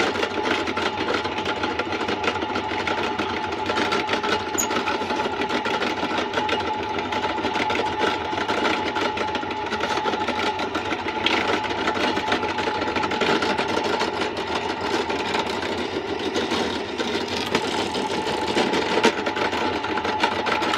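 Benchtop drill press running steadily with a constant hum, its bit boring holes through small wooden blocks.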